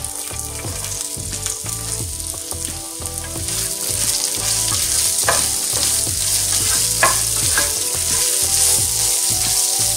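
Diced onions frying in hot oil in a pan with the spice-and-lentil paste ingredients. The sizzle runs steadily and grows louder about three and a half seconds in. A spatula stirs and knocks against the pan a couple of times.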